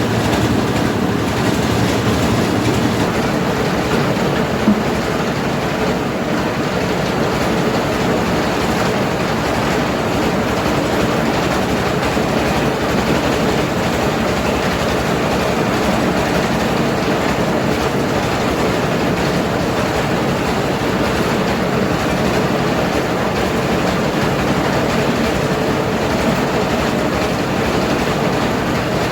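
Mobile rice milling machine running steadily under power, an even, unbroken mechanical din, with one sharp knock about five seconds in.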